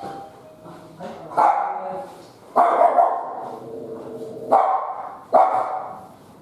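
A dog barking repeatedly, a loud bark about every second.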